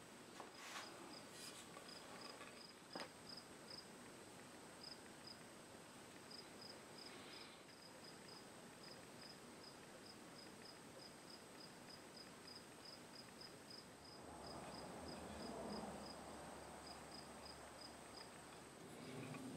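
Near silence with faint, short, high-pitched chirps repeating in uneven runs. There are a couple of light taps in the first few seconds and a soft rustle about fifteen seconds in.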